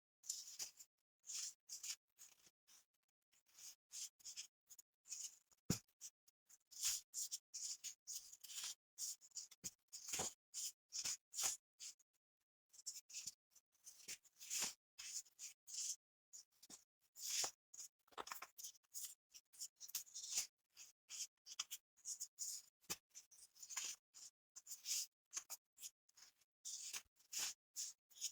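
Reformed baking soda chunks being crushed by hand, a rapid, irregular run of gritty crunches several times a second, sped up to double speed. There is a short pause about halfway through.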